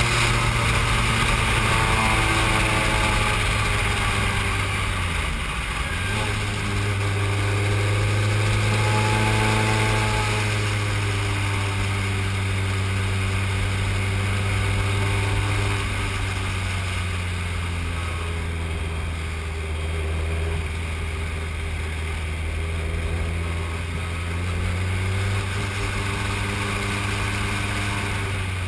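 Formula 3 racing car's engine heard from the cockpit, running under load. Its pitch drops sharply about five seconds in, climbs back, then holds fairly steady with small rises and falls as the car laps the circuit.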